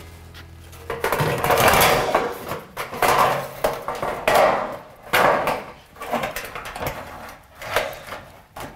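Irregular scraping and knocking of a steel siding panel being handled and fitted into place.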